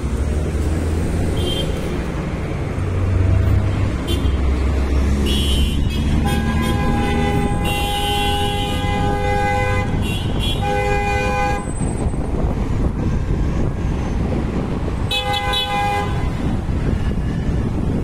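Vehicle horn honking: a long blast of about four seconds about a third of the way in, a second shorter blast right after it, and a brief toot near the end, over the steady rumble of road traffic.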